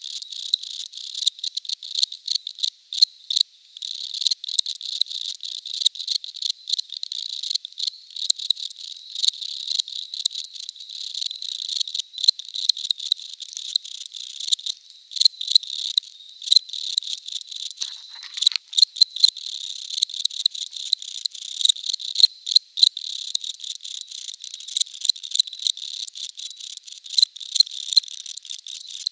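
Crickets chirping: a continuous run of rapid, high-pitched chirps.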